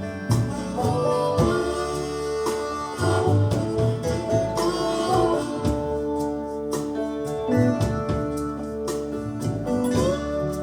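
Instrumental break in a blues song: guitar playing melodic lines, some notes sliding in pitch, over bass and a steady drum beat.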